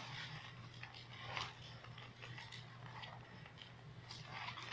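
Faint rustling and scattered small clicks of Bible pages being turned while the passage is looked up, over a steady low hum.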